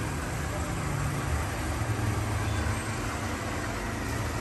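Steady low rumble with a faint hum, without clear starts or stops.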